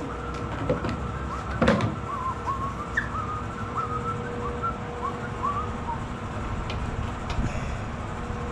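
A string of short whistled chirps, each rising then dropping in pitch, coming irregularly a few times a second over a steady hum. A single sharp metallic clink about 1.7 seconds in.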